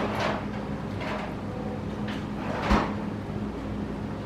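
Tableware being handled: a few brief scrapes and light knocks, the loudest with a soft thump about two and a half seconds in, over a steady low hum of the room.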